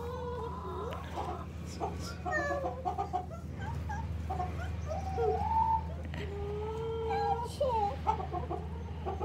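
Backyard hens clucking, with a few short clicks and some drawn-out calls.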